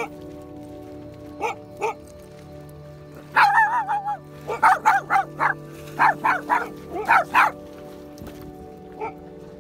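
A small dog barking high-pitched: a few single barks early, then a drawn-out yelp about three and a half seconds in, followed by a quick run of about a dozen short barks.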